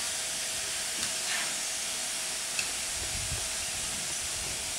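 GWR 4200-class 2-8-0T steam tank locomotive standing and hissing steam steadily, with a brief low rumble about three seconds in.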